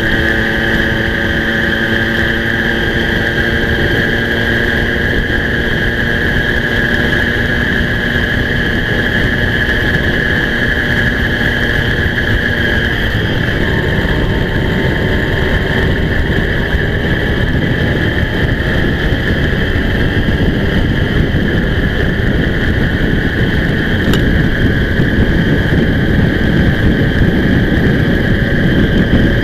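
Moped's small two-stroke engine running steadily at riding speed, heard from an onboard camera with wind rush. About halfway through the engine note changes and the wind noise grows.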